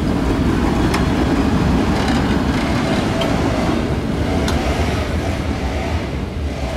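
A PCC electric streetcar passing close by and rolling away, its steel wheels rumbling on the rails with a few sharp clicks, the sound easing as it recedes.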